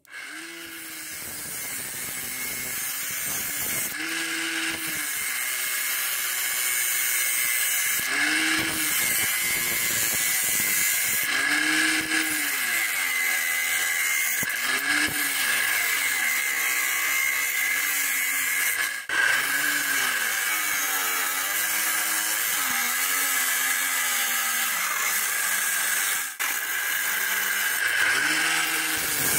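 Homemade angle grinder with a 12V 775 DC motor running, its pitch repeatedly sagging and recovering as it is pressed into work, with two brief dips in level.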